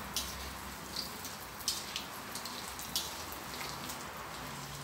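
Battered shrimp frying in hot oil in a wok: a steady sizzle with scattered sharp crackles and pops.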